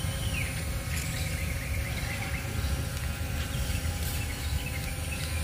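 A9 Pro quadcopter's propellers buzzing steadily as it hovers, over a low rumble.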